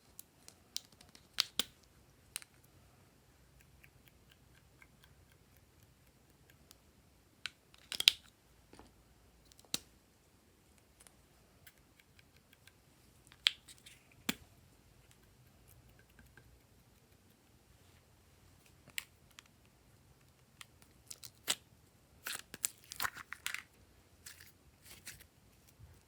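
Glossy slime being pressed and stretched by hand, giving scattered sharp pops and clicks as trapped air bursts. The pops come singly or in short clusters with quiet stretches between, the loudest about a third of the way in, and a dense run of crackling pops near the end.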